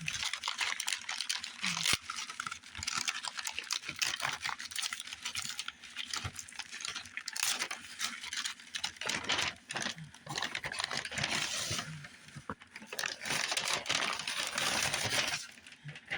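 Packing material and bagged comics crinkling and rustling as they are handled, with many small clicks and taps; it stops near the end.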